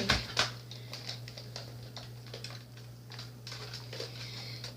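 Scattered light plastic clicks from a Nerf Elite Rampage blaster being handled and worked while it fails to fire.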